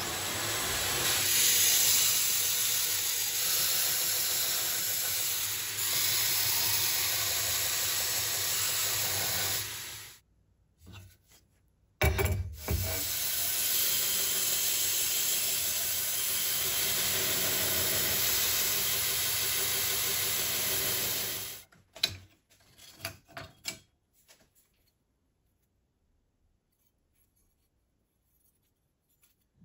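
2x72 belt grinder grinding the bevels of a knife blade cut from an old saw blade disc, with the blade held in a bevel jig against the belt. The grinding is steady and comes in two long stretches, each cutting off suddenly. A few light clicks follow, then near silence for the last several seconds.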